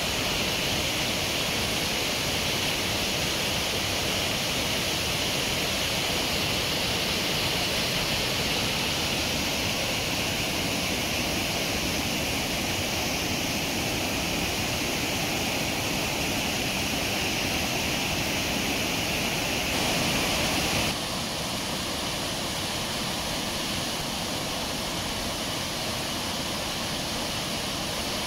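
Steady rush of white-water river rapids in high flow, with a slight drop in level and a change in tone about 21 seconds in.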